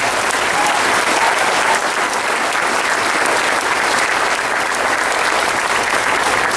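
Audience applauding, a dense, steady clapping with no let-up.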